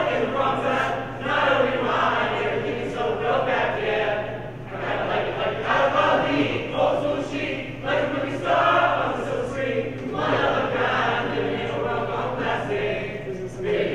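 A mixed group of men's and women's voices singing together as a small choir, in phrases with brief breaks, over a steady low hum.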